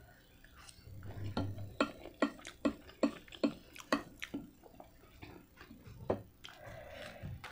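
Close-miked chewing of a mouthful of cheesy spaghetti: a string of short, wet mouth clicks, about two or three a second.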